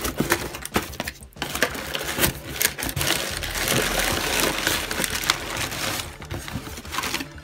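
Cardboard, crumpled packing paper and a clear plastic bag rustling and crinkling under the hands as a box is unpacked, a dense run of small crackles and clicks.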